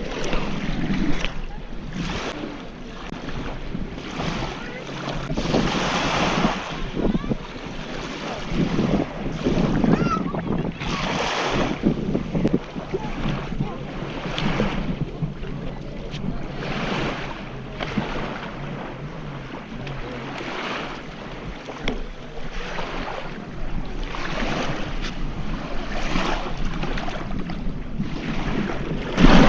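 Wind buffeting the microphone in repeated gusts, with small waves washing at the water's edge.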